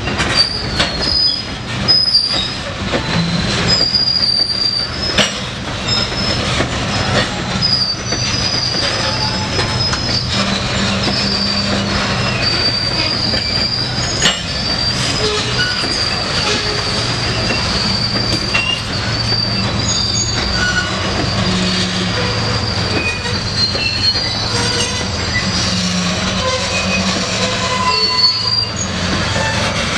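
Loaded covered hopper cars of a freight train rolling past. The steel wheels squeal on the rails with a high, wavering tone over a steady low rumble, and there are clicks as the wheels pass over the rail joints, most frequent in the first few seconds.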